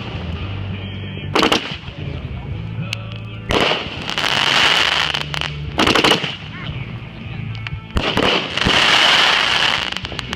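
Consumer fireworks going off: four sharp bangs, about 1.5, 3.5, 6 and 8 seconds in. After the second and fourth bangs come loud, dense hissing stretches that last a second or two each.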